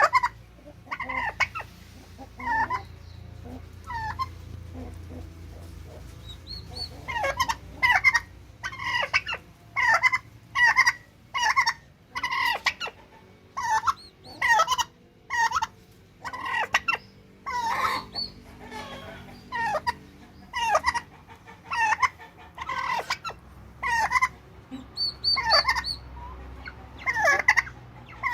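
Domestic turkeys calling: a long run of short, repeated calls, about one a second, sparse at first and coming thicker after several seconds.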